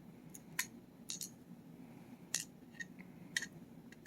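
About seven light, sharp metallic clicks and taps, scattered unevenly, from small pin-tumbler padlock parts (pins, springs) and tools being handled while the lock is taken apart.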